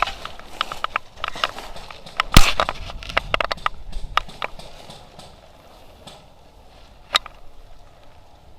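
A run of irregular sharp clicks and snaps, thickest in the middle and loudest about two and a half seconds in, then thinning out to a few isolated ones.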